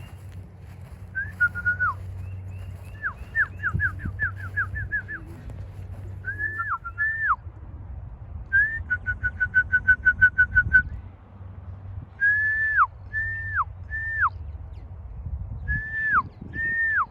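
A person whistling to call racing pigeons in to the loft: short whistles repeated again and again, most ending with a quick drop in pitch, with a fast run of about a dozen rapid whistles a little past the middle.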